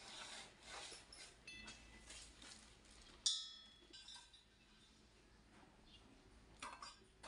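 Faint handling noise of wires and a small plastic controller being fitted by hand, with light clicks and one sharp click with a short ringing about three seconds in.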